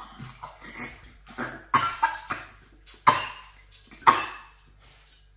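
Short coughing and spluttering bursts from people eating with cheek retractors holding their mouths wide open. There are several sudden coughs; the loudest two come about three and four seconds in.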